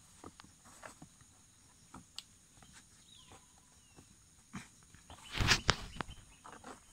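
Close-up rustling, scraping and small clicks of hands working coir cord and bark around a cut kithul palm flower stalk, with one louder rustle and knock about five and a half seconds in. Faint short chirps sound now and then.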